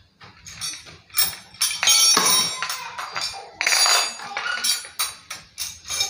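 Small metal carburetor body and plates of a sprayer engine being handled and knocked together over a plastic tub: a quick, irregular run of clicks, clinks and knocks with brief metallic ringing, busiest in the middle.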